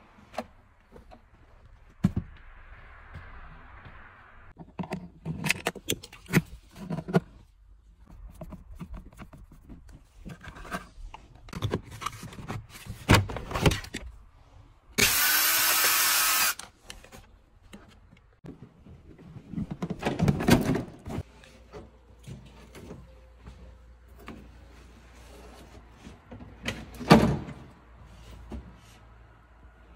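Plastic interior trim of a Volkswagen Passat being taken apart by hand: panels and clips clicking, knocking and rattling as they are pried off and handled. About halfway through a power tool runs steadily for a second and a half, and near the end there is one loud knock.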